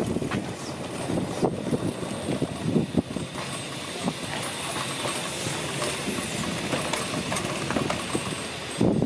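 Ride-on miniature live-steam locomotive working, with uneven puffs in the first three seconds, then a steadier hiss and chuff.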